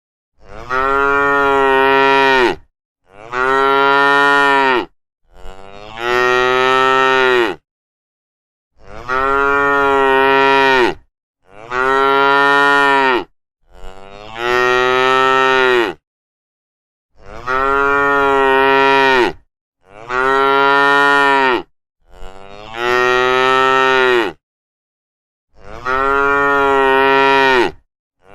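Cows mooing: about ten long moos in a row, each lasting about two seconds, with short gaps between them.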